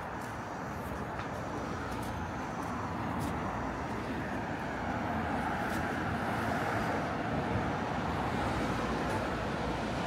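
City street traffic: steady road noise from passing cars, growing gradually louder.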